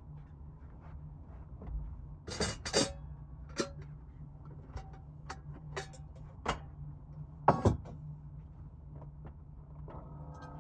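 Cookware being handled for cooking: a run of sharp metal clinks and knocks, the loudest a quick double knock about seven and a half seconds in, over a steady low hum.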